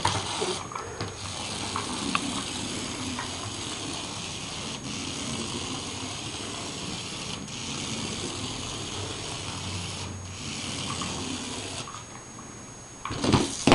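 Remote-control toy mouse running: a steady, hissing whir from its small motor and wheels, in runs of a few seconds with short breaks. It stops about two seconds before the end.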